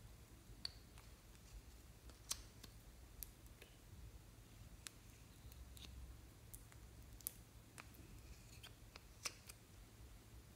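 Near silence broken by faint, scattered small clicks and taps: a plastic spatula scraping makeup from small plastic pots and dabbing it onto slime in a glass tray.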